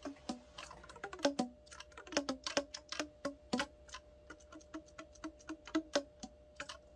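Keywork of a Yamaha YSS-61 soprano saxophone fingered rapidly without being blown: a quick, irregular run of key clicks, with soft pops as the pads close on the tone holes.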